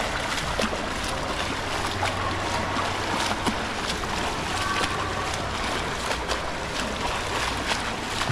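Water splashing from a swimmer's front-crawl arm strokes and kicks: a steady wash of water noise broken by frequent small slaps and splashes.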